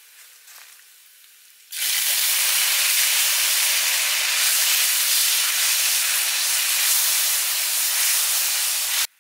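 Palm sugar and chopped garlic sizzling in hot oil in a wok as the sugar melts and is stirred. A faint sizzle for about two seconds, then a sudden loud, steady hiss that cuts off abruptly near the end.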